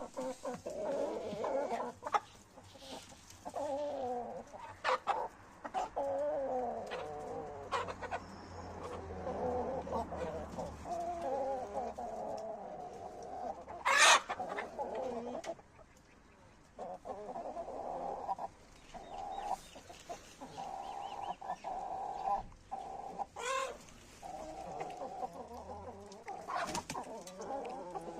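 Domestic chickens clucking and calling almost without pause, several birds overlapping. A few sharp clicks are mixed in, the loudest a sharp knock about halfway through.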